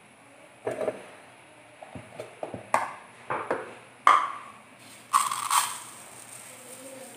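Stainless steel mixer-grinder jar clinking and knocking as it is handled and set down on the counter, a string of sharp metallic knocks with the loudest ring about four seconds in. About five seconds in comes a short rattling hiss as sugar is poured into the steel jar from a plastic measuring cup.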